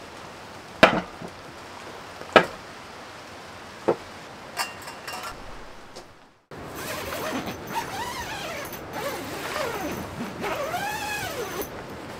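Three sharp knocks about a second and a half apart as camping gear is set down on a wooden camp-kitchen rack. After a brief silence, a tent zipper and cotton canvas door panel are worked, with several long rising-and-falling zipping strokes and fabric rustling.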